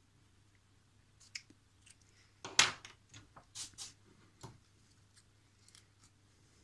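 Tools being handled on a workbench: a few short clicks and light rattles, the loudest about two and a half seconds in, as a reel of solder is picked up.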